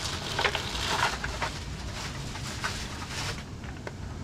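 Thin plastic shopping bag rustling and crinkling as a hand rummages inside it, dense at first, then thinning to scattered crinkles.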